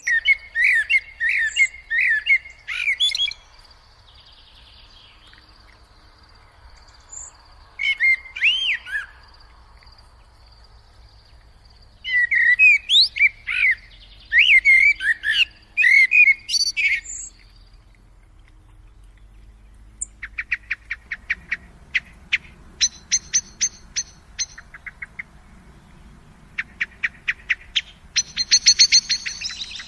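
Common blackbird song: fluty, warbling phrases come with pauses between them. About two-thirds of the way in, they give way to fast runs of short, sharp repeated notes.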